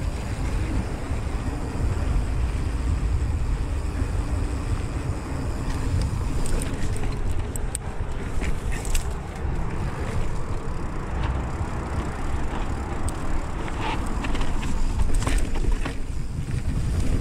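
Mountain bike riding down a dirt singletrack: a steady rumble of wind on the handlebar-mounted camera's microphone and tyres on dirt. Scattered clicks and rattles from the bike over rough ground come in the middle and again near the end.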